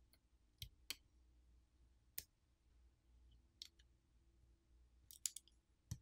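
Faint, sparse clicks from handling a smartphone's mainboard and popping off the flex and coaxial cable connectors beneath it. A few separate clicks come first, then a quick run of clicks about five seconds in.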